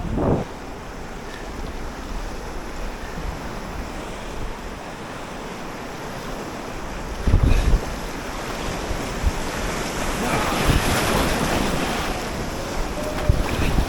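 Rushing river water around a kayak on a whitewater river, with wind buffeting the microphone. A heavy low thump comes about halfway through, and the rush of water grows louder near the end.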